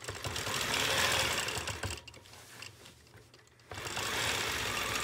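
Longarm quilting machine stitching, running for about two seconds, stopping briefly, then stitching again, as the needle is guided along an acrylic circle ruler.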